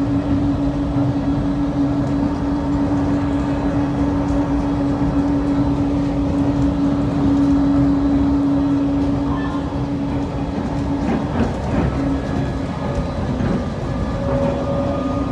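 Automated airport people-mover train running, heard from inside the car: a continuous rolling rumble under a steady drive hum. About three-quarters of the way through, the hum wavers and then carries on slightly lower in pitch.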